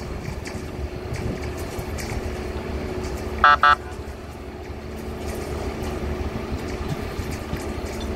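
Diesel engines of rail-gang track maintenance machines running steadily, with occasional light clicks. About three and a half seconds in, a horn gives two short toots.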